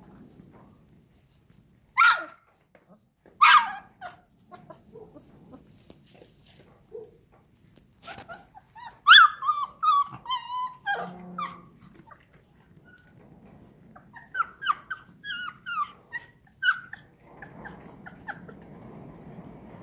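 Akbash puppies play-fighting, giving high-pitched puppy yips and small barks: two sharp yips about two seconds in, a run of yips with a falling whine in the middle, and a quick string of short yips near the end.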